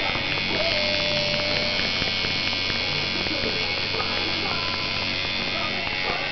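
Electric tattoo machine buzzing steadily while shading a tattoo into the skin.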